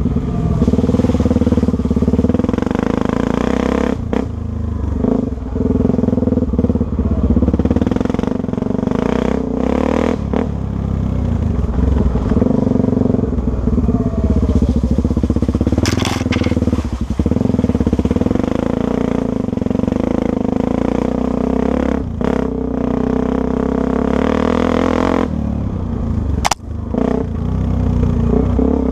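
Dirt bike engine running steadily, its pitch rising and falling a little with the throttle. A few sharp knocks cut through it.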